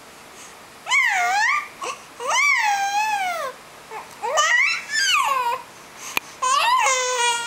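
Infant babbling and cooing: four long, high-pitched sing-song vocalizations, each sliding up and down in pitch.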